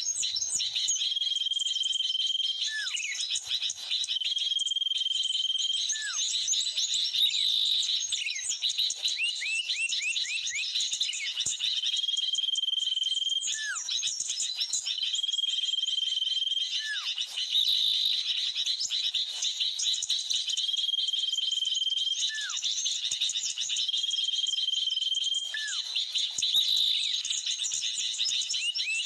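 Bird-lure recording playing on a loop: agitated sooty-headed bulbul (kutilang) calls mixed with small-bird calls. Dense, busy chirping carries a held whistled note and a short falling call, which come back in the same pairs every several seconds.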